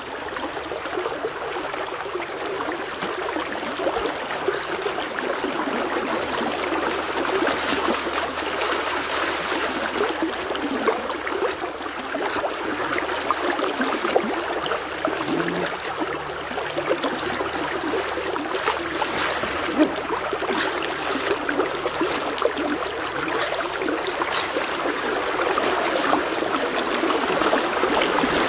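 Steady rushing of a fast-flowing river current. Near the end a person splashes in the water and the sound grows a little louder.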